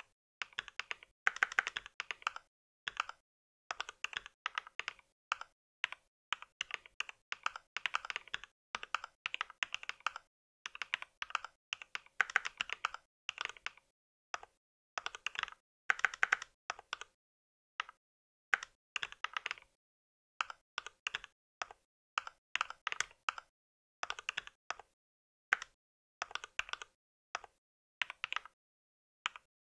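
Typing on a mechanical keyboard: quick runs of key clicks broken by short pauses.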